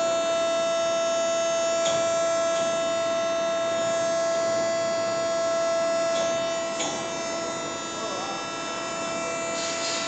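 Induction melting furnace running, giving a steady high-pitched electrical whine: one strong tone with many fainter overtones above it, and a few faint clicks.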